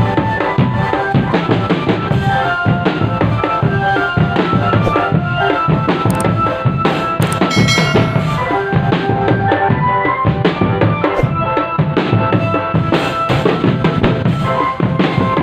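Indonesian drumband playing: a dense, steady beat of bass drums and snare drums, with a melody line held over it.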